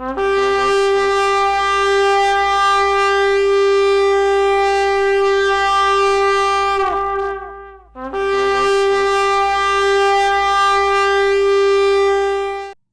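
Two long, steady blasts on a horn sounded as an alarm: the first lasts about seven seconds and falls away in pitch as it ends, and the second, after a brief gap, lasts about five seconds and cuts off.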